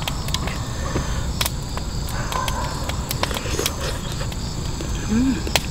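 Crickets chirping steadily in the background, over a low steady rumble. Scattered light clicks of a spoon against a metal pot come through as food is eaten, and a brief hummed 'mm' of a voice is heard near the end.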